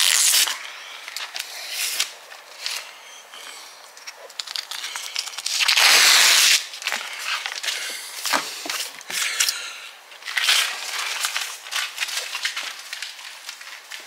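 Masking tape being peeled off a painted door frame and crumpled in the hand: crinkling and tearing in bursts, the loudest and longest about six seconds in.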